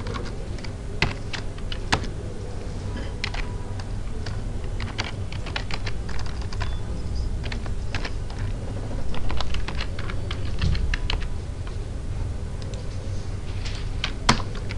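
Typing on a computer keyboard: irregular runs of keystroke clicks, over a low steady hum.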